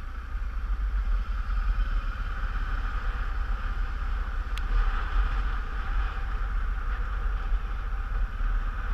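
Motorcycle riding along at a steady pace: the engine runs evenly under a constant rush of wind rumbling over the microphone. A single short click sounds about halfway through.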